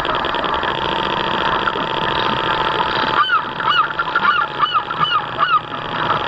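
A run of about ten short honking calls from waterfowl, starting about three seconds in and lasting some two and a half seconds. Underneath is the steady whine of the radio-controlled model boat's motor.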